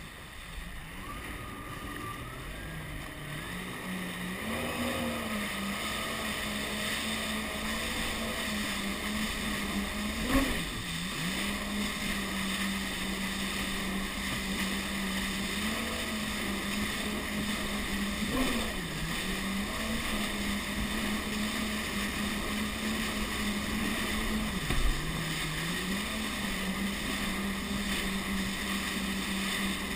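Jet ski engine running at a steady speed. Its revs dip briefly three or four times and pick back up, over a hiss of water and wind. There is a sharp thump about ten seconds in and another near the end.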